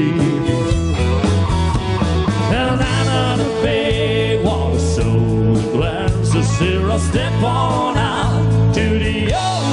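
A rock band playing live: a steady bass and drum groove under a lead melody that bends and slides in pitch.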